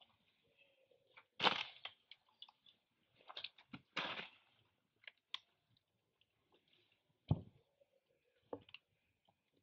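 Scattered short crunching and cracking sounds from a macaque biting and chewing a banana, loudest about a second and a half in and again around four seconds in. A single sharp knock comes a little after seven seconds.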